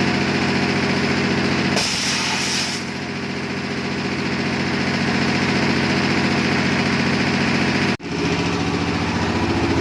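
An engine running steadily, with a burst of hissing about two seconds in that lasts about a second.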